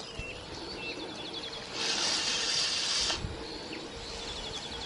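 Small birds calling in quick runs of repeated high notes, one run about a second in and another near the end. In the middle comes the loudest sound, a hissing rush lasting just over a second.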